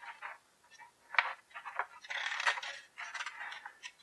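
Pages of a glossy comic book being turned by hand: a run of short paper rustles and crinkles, with a longer page-turning swish about two seconds in.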